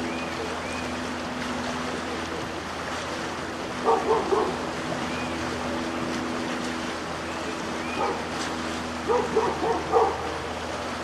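Steady rush of creek rapids, with a dog barking in short bursts: three quick barks about four seconds in and a run of barks around nine to ten seconds in.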